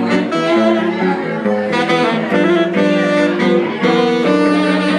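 Saxophone playing a jazz melody line of connected held notes, with guitar accompaniment underneath, live in a bar.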